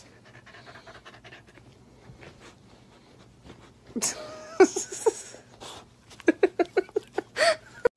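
Puppy yipping and whining in play, with a quick string of short yips and a rising-and-falling whine near the end.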